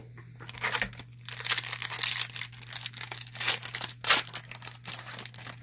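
Hockey trading-card pack wrapper being torn open and crinkled: a dense run of crackling and tearing for about five seconds.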